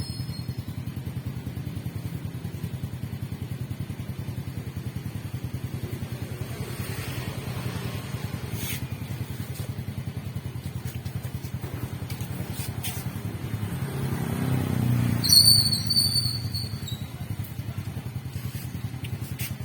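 A small 50cc motorbike engine running steadily at idle, swelling louder for a few seconds about fourteen seconds in. A brief high-pitched chirping sounds near the loudest point.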